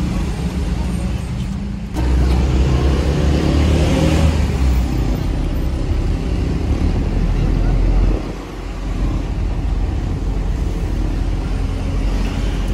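Engine and road noise of a diesel elf minibus, heard from inside the cab while it drives, with a steady low rumble. It gets louder about two seconds in and dips briefly about eight seconds in.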